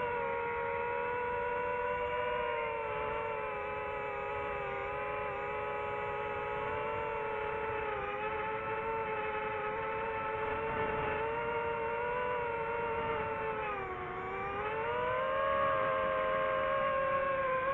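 DJI FPV drone's motors and propellers whining, heard from on board the drone. The pitch holds fairly steady, dips about fourteen seconds in, then climbs back up.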